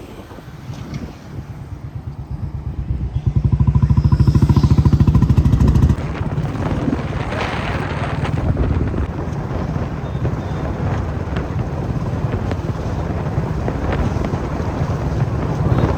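Motor vehicle engine running with a fast, even low pulsing that builds and is loudest for a few seconds before cutting off suddenly about six seconds in. After that comes a steady rumble of road and traffic noise.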